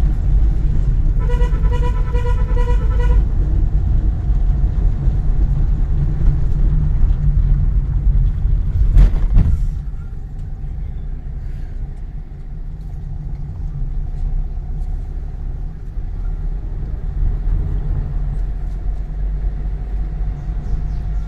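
Car cabin rumble of engine and tyres while driving. Early on a horn sounds in a quick run of beeps for about two seconds. About nine seconds in there is a loud thump, and after it the rumble runs quieter.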